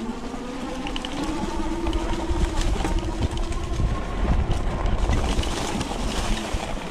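Electric motor of a fat-tire e-bike whining under power as it pulls along a climb: the pitch rises over the first couple of seconds, holds steady, then fades near the end. Under it is a low rumble of wind and fat tyres rolling over leaf litter.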